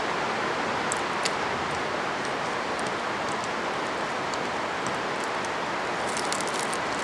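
Steady hiss of rain, with faint scratchy clicks of a hand scraper dislodging packed metal chips and grease from the grooves of a cast-iron lathe saddle; the scratching grows busier near the end.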